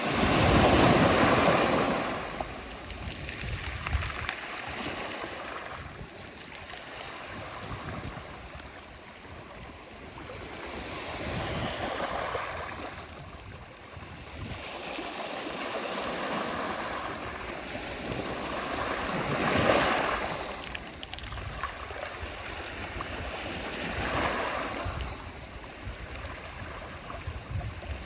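Sea waves breaking and washing on the shore in a slow, uneven rhythm. The loudest break comes right at the start, with more surges about twenty and twenty-four seconds in and gentler wash between them.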